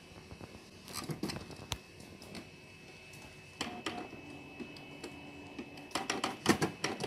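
Canon PIXMA iP2770 inkjet printer mechanism clicking, with a few soft clicks about a second in, a brief faint hum midway and a burst of louder clicking and rattling near the end, as the printer comes back online after the unrecognised-cartridge error is cleared.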